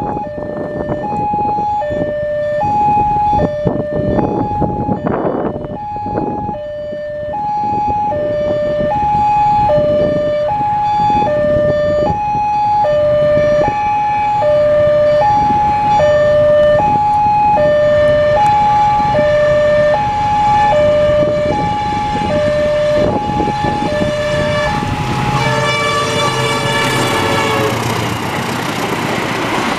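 Indonesian level-crossing warning alarm sounding two electronic tones in turn, high and low, over and over. About 25 seconds in, the CC 201 diesel-electric locomotive sounds its horn in a long blast as it reaches the crossing, and the train's passing noise begins.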